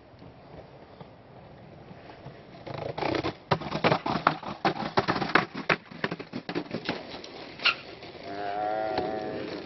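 Skateboard on concrete steps: a long run of sharp, irregular clacks and knocks as the board rolls and hits the step edges. Near the end comes a drawn-out, wavering vocal call lasting about a second.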